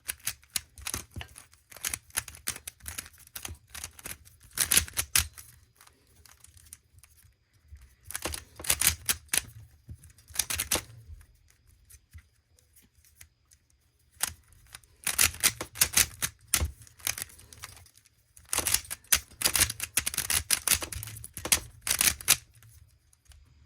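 Plastic Rubik's Phantom 3x3 cube being turned by hand: its layers click and clack in quick runs of turns, four bursts with short pauses between.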